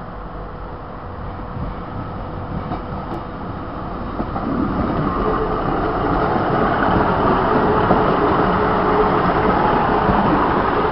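Diesel multiple unit train running at the station platform with a steady engine hum, getting louder about four seconds in.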